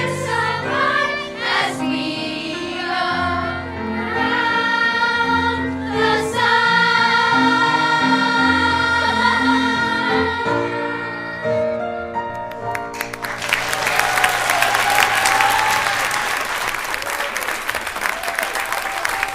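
A children's choir singing the last bars of a song with musical accompaniment, the voices ending about two-thirds of the way through. The audience then breaks into applause, which carries on to the end.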